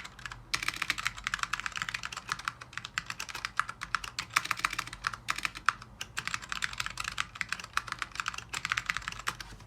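Steady fast typing on an Orion V3 mechanical keyboard with Alps SKCM Brown switches on an FR4 plate: a dense run of key clicks with a couple of brief pauses, stopping just before the end.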